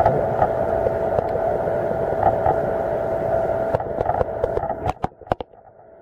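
Underwater recording of a steady engine whine from a distant boat carried through the water, over crackling noise. About five seconds in it drops away after a few sharp clicks, then slowly comes back.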